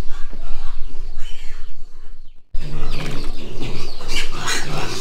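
Pigs squealing in their pen, loud and high-pitched from about halfway through, where the scene cuts to feeding time.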